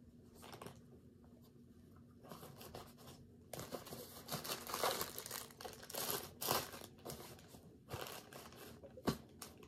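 Plastic bag and packaging rustling and crinkling as things are handled, starting about three and a half seconds in, with a sharp click near the end.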